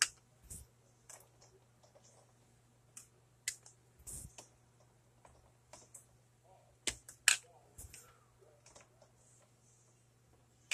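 Scattered light clicks and knocks as hot boiled eggs are picked out of an electric egg cooker's tray and handled, over a faint steady low hum.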